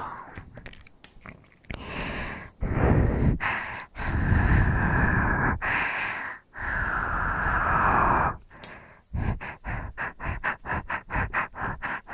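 A person breathing heavily close to the microphone, ASMR style: several long, deep breaths, then quick, short panting at about three breaths a second from about nine seconds in.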